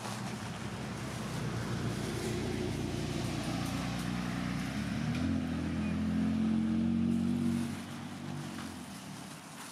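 A motor vehicle driving past on the road, its engine hum and tyre noise building over several seconds, loudest a little past the middle, then fading away near the end.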